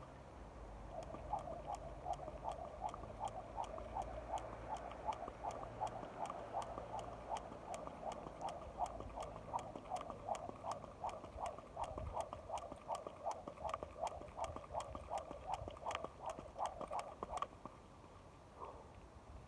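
Skipping rope turning and slapping the hard ground in a steady rhythm, about three strokes a second. It starts about a second in and stops near the end.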